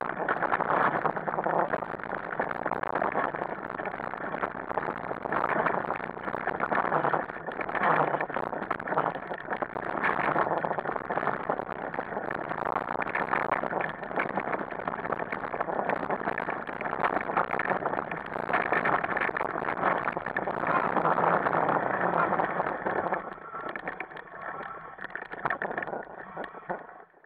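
Wheels and frame of a dog-drawn rig running fast over a rough forest dirt trail: a continuous rattling noise that fades near the end as the rig slows to a stop.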